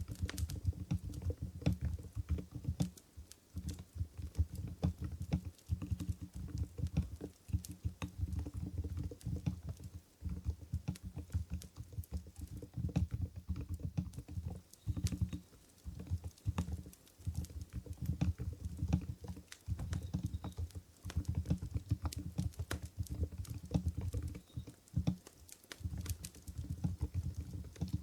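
Steady typing on an Mstone Groove GV10 keyboard with silent coral 45 g switches: a dense, irregular run of soft, deep keystrokes broken by short pauses.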